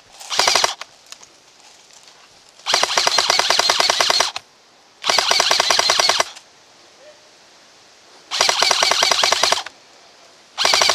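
Airsoft gun firing full-auto in five bursts: a short one right at the start, longer ones of about one to one and a half seconds each, and a short one cut off at the end, each a rapid even string of shots.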